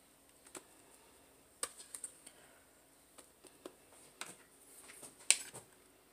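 Rubber spatula and knife scraping and tapping against a metal mixing bowl and foil pie tin while a thick whipped filling is scooped out and spread: scattered soft clicks and scrapes, the sharpest a tap a little past five seconds in.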